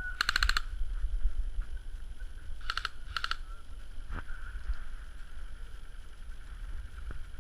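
Airsoft electric guns firing three short full-auto bursts of rapid clicks, about twenty shots a second. The first burst lasts about half a second, and two shorter ones follow about three seconds in. A low rumble of wind on the microphone runs underneath.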